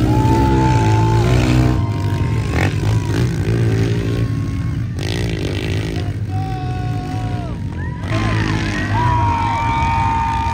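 Several pit bike engines revving up and dropping back as the riders ride laps, their pitches rising and falling over one another above a steady low drone.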